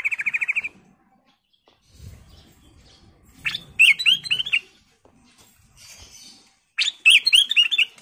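Ruby-throated bulbul (kutilang emas) singing: a quick rattling trill at the start, then two short phrases of loud, slurred whistled notes about four seconds and seven seconds in.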